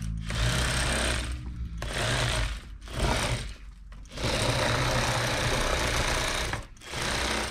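Bubba electric fillet knife running in five bursts, its motor-driven reciprocating blades sawing through a crappie to cut a fillet. The longest burst lasts about two and a half seconds, past the middle.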